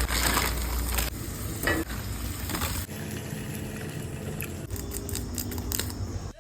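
Food sizzling in a cooking pan with an even hiss while a utensil stirs it, clinking and scraping against the pan now and then. The hiss is loudest in the first second.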